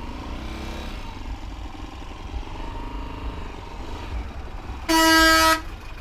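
A vehicle horn sounds once near the end, a single loud blast lasting under a second, over a steady low rumble.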